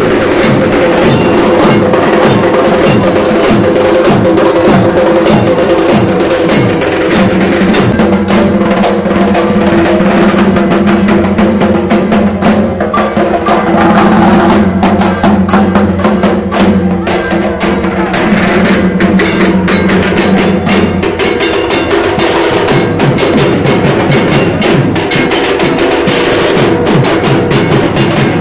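Live drumming on a two-headed barrel drum, a fast, steady dance beat of sharp strokes, with a held low tone joining in from about eight seconds in until about twenty seconds in.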